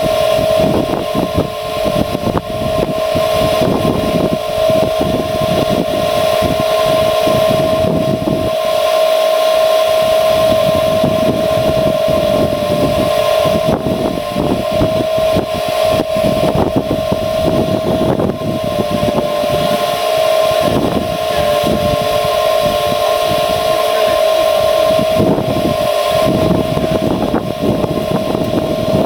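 Blower on a wood gas truck's drum-built gasifier running with a steady whine, drawing gas through the system during start-up, with irregular low rumbling underneath.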